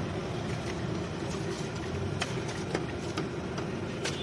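Steady hum of street traffic with a handful of sharp metallic clinks as a steel ladle knocks against the pot and steel serving bowls.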